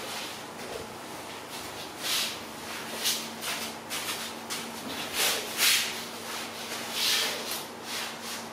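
Cloth rustling and handling: a string of soft, irregular swishes as a towel and cushion are moved about, over a faint steady hum.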